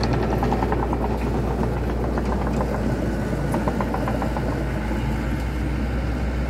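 Diesel engine of a loaded dump truck running steadily at low speed, with a low hum and a fast, even clatter.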